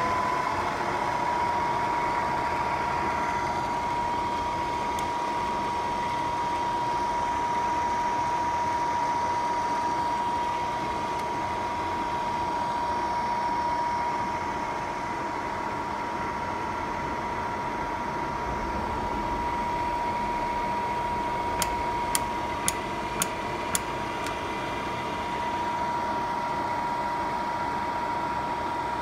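Bridgeport Series 1 milling machine running with its spindle turning, a steady whine over a machine hum; the whine slides down a little in pitch in the first second, then holds. About three-quarters of the way through come five quick sharp clicks, about two a second.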